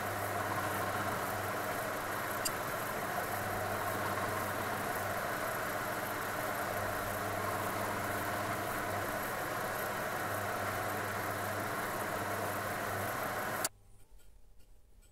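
Milling machine running steadily, its spindle motor humming as it turns a gear cutter beside a brass clock wheel on a dividing head. Near the end it is switched off with a click and the sound stops suddenly, leaving a few faint ticks.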